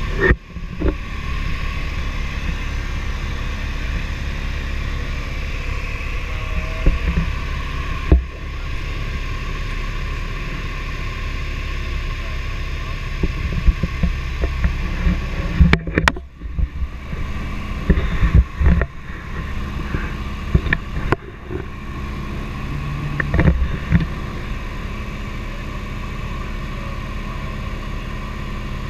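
Light aircraft's engine and propeller droning steadily, heard from inside the cabin in flight, with a few scattered knocks and clicks.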